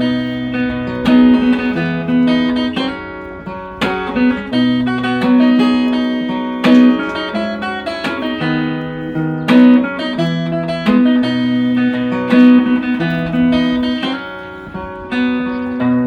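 Acoustic guitar music, picked and strummed, with low notes changing about every second.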